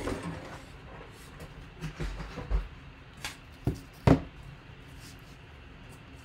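A few handling knocks and taps from a large photo in a clear plastic sleeve being moved and stood up on a table, the loudest knock about four seconds in, with faint room hum between.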